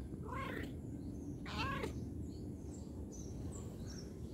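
An orange tabby cat meowing twice, each meow about half a second long with a wavering pitch, the second one about a second after the first.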